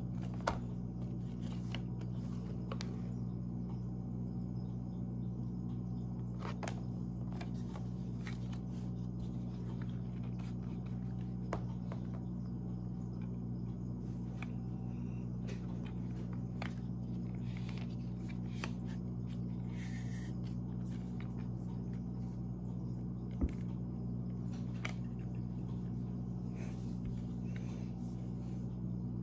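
Folded mini tripod being handled, its plastic parts giving scattered light clicks and taps, with a sharper knock just after the start and another late on, over a steady low hum.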